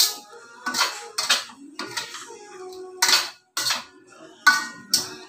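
Metal spoon scraping and clanking against a stainless steel wok as chicken pieces are stirred, about eight uneven strokes.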